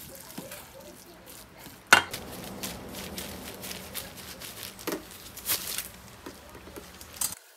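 Tableware clatter: scattered clinks and knocks of dishes and utensils over a low steady hum, with one sharp loud knock about two seconds in. The sound cuts off abruptly near the end.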